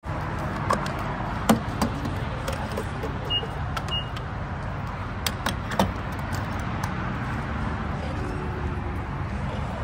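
Steady low vehicle rumble with scattered clicks and knocks, and two short high beeps about half a second apart, about three and a half seconds in.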